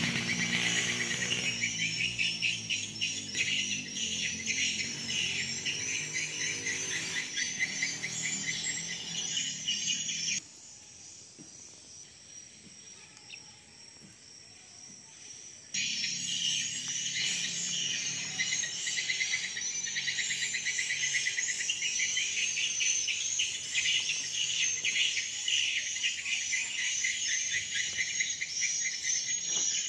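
A dense chorus of insects, shrill and rapidly pulsing. It cuts out abruptly about ten seconds in, leaving a much quieter stretch of about five seconds, then comes back just as suddenly and carries on.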